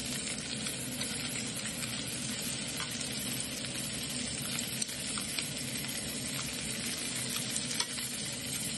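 Shrimp sizzling steadily as they flash-fry in oil in a stainless steel skillet, with a few light clicks of metal tongs against the pan as they are turned.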